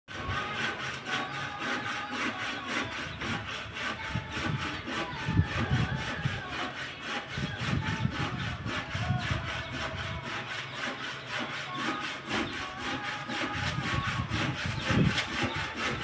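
Rapid, even rhythmic rasping, about five strokes a second, running steadily throughout.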